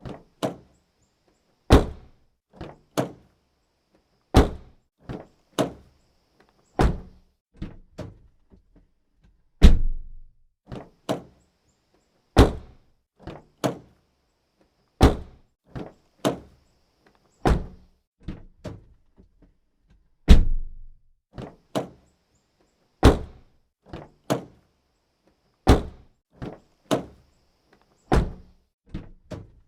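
Car door being shut again and again: a heavy thunk about every two and a half seconds, each with smaller clicks and knocks of the latch and handle around it, and dead silence between.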